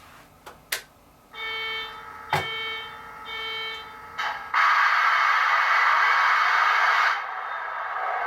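Tsunami 2 sound decoder in an HO-scale SD70ACe model locomotive playing its startup sounds through the model's small speaker: a few light clicks, three short buzzing tones, then a loud steady hissing rush for a couple of seconds. This settles into a quieter steady running sound.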